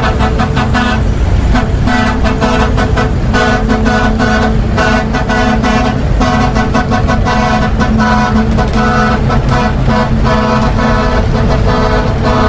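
Truck horn honking loudly in a rapid string of short blasts, several pitches sounding together.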